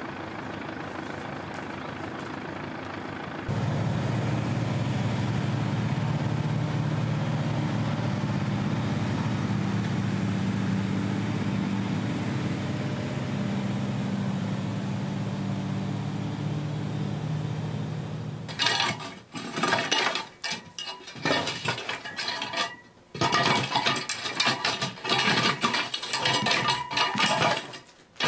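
A truck engine running steadily. About 18 seconds in it gives way to a long-handled rake scraping and dragging over the gravelly earth floor of a stone basement, in repeated strokes roughly once a second with short pauses.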